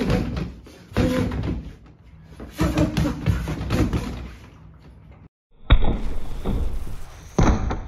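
Bare fists punching a freestanding rubber torso dummy, a run of sharp thuds at uneven intervals with a short pause just past halfway.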